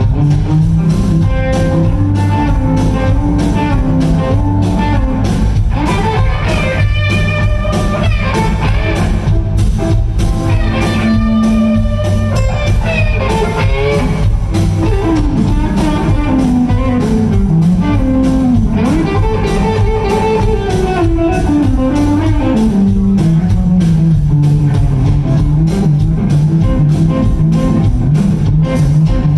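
A live blues-rock band playing an instrumental: electric guitars over drums, with a lead guitar line that bends and slides in pitch through the middle of the passage, heard from the audience.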